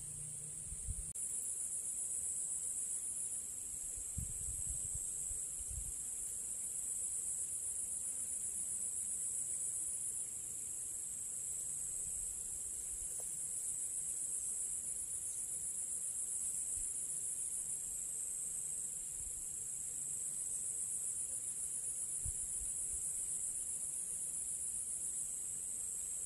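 A steady, high-pitched insect chorus, a dense shrill trill with a fine pulsing texture, that grows a little louder about a second in. A few soft low bumps sound in the first several seconds.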